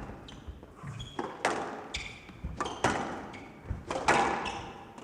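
Squash ball being struck by rackets and hitting the walls during a rally, sharp thwacks every second or so that ring on in a large hall, with short high squeaks in between.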